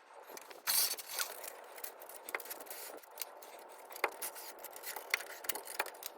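Hand-tool and metal-handling noises from working on a truck exhaust: scattered clicks and ticks, with a short scraping hiss about a second in.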